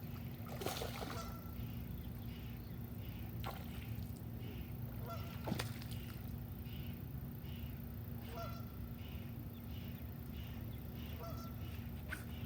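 Short honking calls of waterfowl, such as geese, heard a few times over a faint, evenly repeating chirping and a low rumble, with a few sharp knocks.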